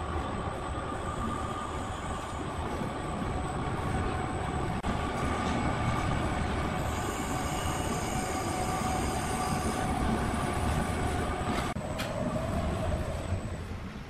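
Sawmill machinery running steadily with a whine over a dense mechanical rumble. About twelve seconds in there is a sharp knock, after which the whine drops in pitch.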